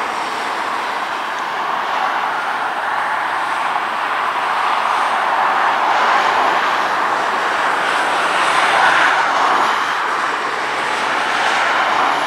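Airbus A321neo's Pratt & Whitney PW1100G geared turbofans at approach power: a steady jet rush that swells as the airliner comes down toward the runway.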